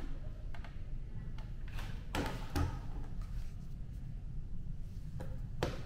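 Handling noise: a few short knocks and clatters as a hair dryer and small boxed toiletries are lifted and set down on a counter, the loudest about two seconds in and again near the end, over a steady low hum.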